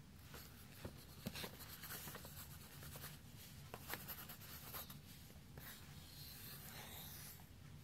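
Faint scratching of a pencil scribbling on lined paper, in short spurts with a few light taps, then one longer stretch of scribbling near the end.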